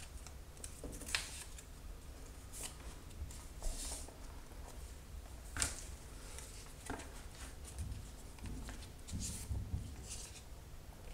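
Paper strips for papier-mâché rustling, with scattered small clicks and taps as the strips are dipped in glue-water and pressed onto a small cardboard box, over a low steady hum.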